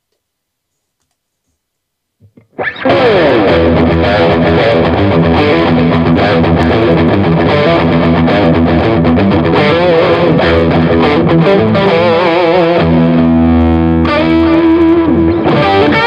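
Silence for about two and a half seconds, then an electric guitar, a Squier Affinity Jazzmaster, played continuously through an amplifier, mixing ringing chords and single-note lines.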